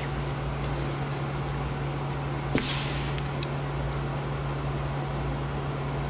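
Steady low mechanical hum of room machinery with a constant hiss, and a short scuffing noise about two and a half seconds in.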